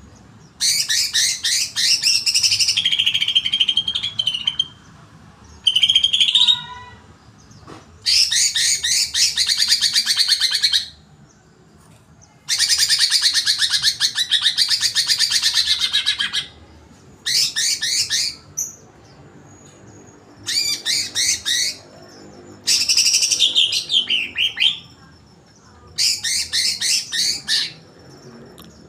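Green leafbird (cucak hijau) singing in fired-up ('emosi') bursts of fast, chattering song. It gives about eight high phrases of one to four seconds each, with short pauses between them.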